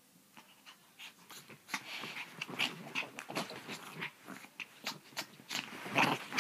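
Chihuahua making rapid, irregular short vocal bursts as it play-fights with a person's hand, building up and loudest near the end.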